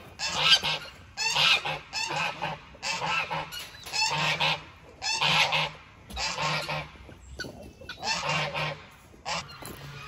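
Domestic geese honking over and over, roughly one loud honk a second, with a few longer pauses in the second half.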